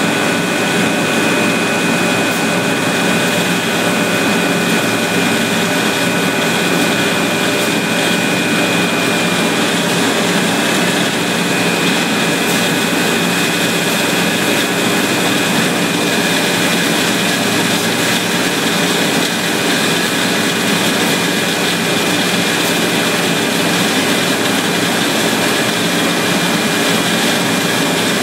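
Steady, loud machine noise in a plastic-film plant, where a conveyor-fed roll guillotine is advancing a film roll: an even drone with two steady high-pitched whines over it.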